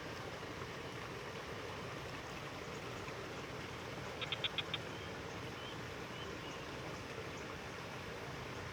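Steady rushing outdoor background noise, with a quick run of five short high chirps from a small animal about four seconds in.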